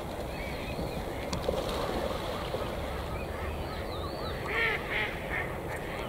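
Waterbirds calling, with short honking calls, two louder ones about four and a half and five seconds in, over many small high chirping calls.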